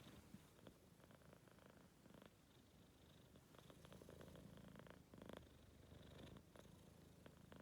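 Faint, steady rumble of a sleeping four-month-old kitten, a sound between a snore and a purr, which the owner cannot tell apart.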